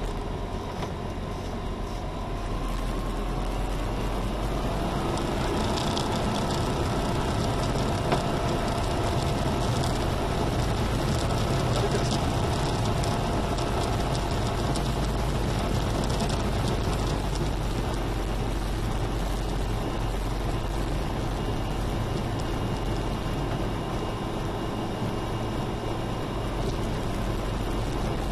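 Diamond HK36 Super Dimona motorglider's piston engine and propeller running steadily, heard from inside the cockpit as a constant low drone with faint steady tones, getting a little louder about three seconds in.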